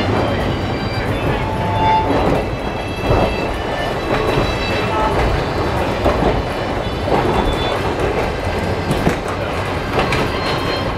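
Locomotive-hauled passenger coach running along the track, heard from inside: a steady rumble of the running gear with occasional wheel clicks over the rail joints.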